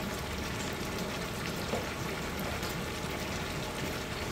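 A large pot of chickpeas, tomatoes and spices cooking in oil and liquid, sizzling and bubbling steadily with a fine crackle.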